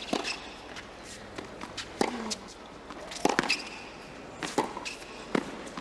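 Tennis rally on a hard court: sharp racquet strikes and ball bounces, one every second or so, with a quick double knock a little past three seconds in.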